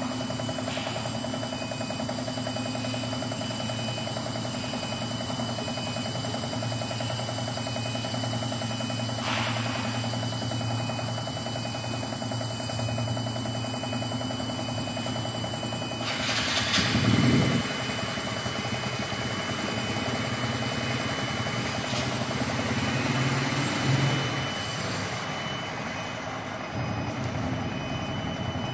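Mastec CNC wood-turning lathe running steadily: a hum with a few steady tones as the spindle turns the wooden workpiece. About sixteen seconds in a louder, noisier stretch of cutting sound comes in for a second or two, and there is a smaller swell near the end.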